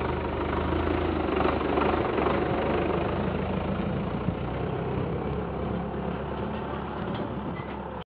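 Sonalika DI-60 RX tractor's diesel engine running steadily close by.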